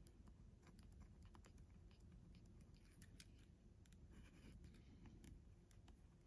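Faint pen writing on paper: scattered light ticks and short scratches as numbers are written, over near silence.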